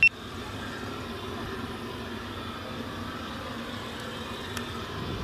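Steady jet noise of a Boeing 777-300ER airliner, with one faint click near the end.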